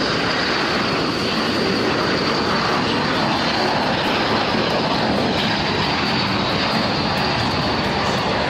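A formation of K-8 jet trainers flying overhead: steady, loud jet engine noise with a thin high whine above it.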